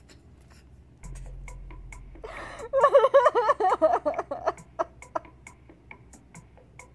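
A young woman laughing, a choppy burst of giggling lasting about two seconds, starting a little over two seconds in.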